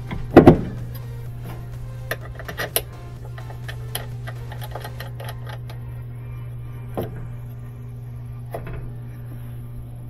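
Knocks and clicks of a washing machine's drive motor and its parts being handled and fitted back into place: two loud knocks about half a second in, then scattered lighter clicks and taps.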